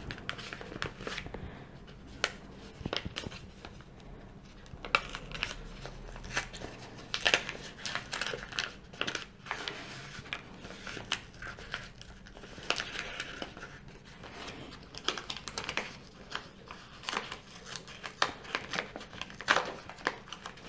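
White paper envelope being opened carefully by hand: irregular crinkling and small tearing sounds as the sealed flap is peeled and torn open bit by bit.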